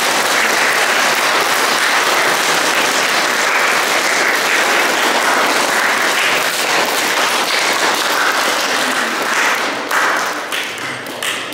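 Audience applause: many people clapping together in a steady, loud ovation that dies away over the last second or so.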